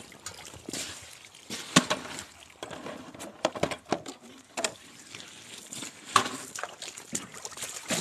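Water trickling and pouring as the catch is rinsed out of a high-banker gold sluice into a gold pan, with scattered knocks and clatters of gear and gravel; the sharpest knocks come about two seconds in and about six seconds in.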